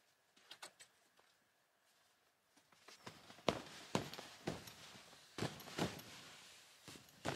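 Footsteps, about two a second, starting about three seconds in after a few light clicks.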